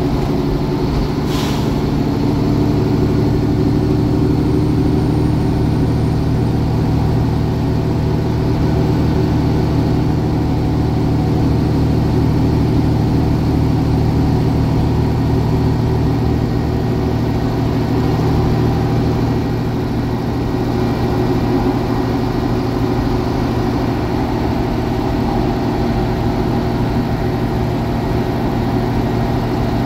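Mercedes-Benz OM 457 LA 12-litre inline-six turbo diesel of a Conecto G articulated city bus running steadily at cruising speed, heard from inside the passenger cabin with road noise. There is a brief hiss about a second and a half in.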